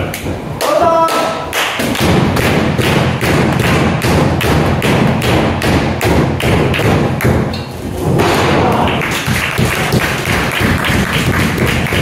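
A fast, even run of thuds and slaps on a pro wrestling ring, about three or four a second, breaking off briefly around eight seconds in and then starting again.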